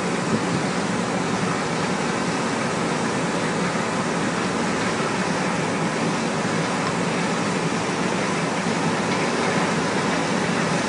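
Steady, even drone of harvest machinery running: combine and tractor engines and grain-handling gear working while the combine unloads on the go into a grain cart.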